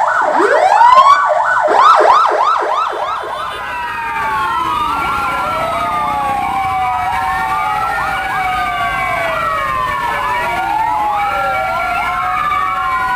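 Many fire engine sirens sounding together. A close siren gives rising whoops and then quick yelps over the first three seconds or so, and after that several wailing sirens overlap, slowly rising and falling.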